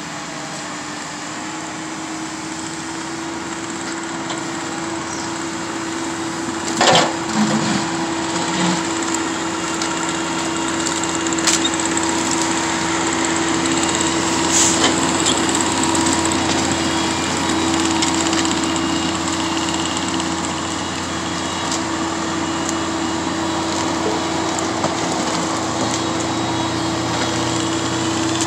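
Diesel engine of a Freightliner 114SD grapple truck running steadily to drive the Palfinger loader's hydraulics, with a constant hum, while the grapple works loads of brush. A single sharp knock comes about seven seconds in, and a few lighter snaps follow later.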